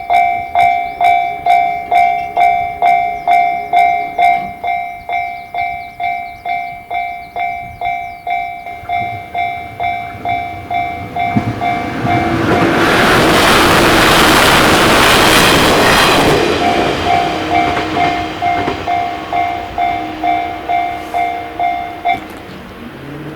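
Japanese level-crossing alarm bell ringing its repeated "kan-kan" strikes, about two a second, while an electric train passes. The train's noise covers the bell for about four seconds in the middle. The bell then rings on and stops shortly before the end, as the crossing clears.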